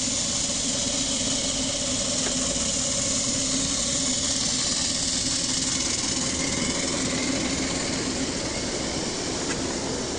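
Ride-on miniature railway train running along its track, with a steady engine hum over the noise of wheels rolling on the rails.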